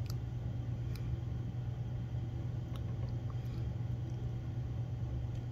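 Tin snips working through a strip of sheet metal: a few faint clicks as the blades bite, over a steady low hum.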